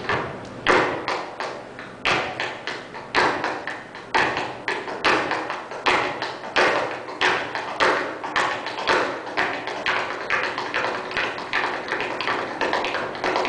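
Tap shoes with metal plates striking a stage floor in quick, uneven rhythms, mixed with the heavier thud of a basketball being dribbled on the boards.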